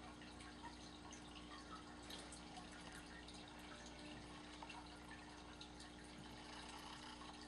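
Near silence: faint room tone with a steady low hum and scattered faint ticks.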